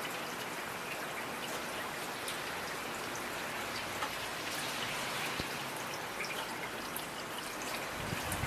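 Steady rain falling, with scattered individual drops clicking close by.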